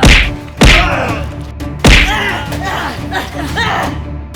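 Three heavy thumps over background music: one at the start, one just over half a second later, and a third a little over a second after that.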